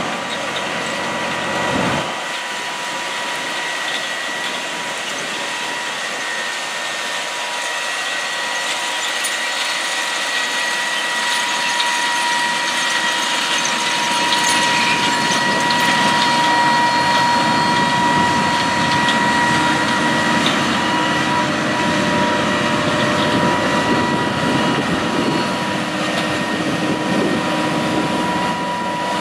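Case IH Steiger 420 tractor's FPT 12.9-litre diesel engine running under load while pulling a 16-row Kinze 3660 corn planter through the field, with a steady high whine over the machinery noise.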